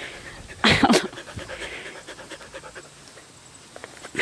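Rough collie panting right against the microphone, with one brief loud burst just under a second in.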